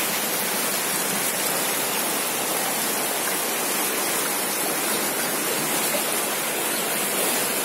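Floodwater rushing steadily, an even wash of water noise without a break.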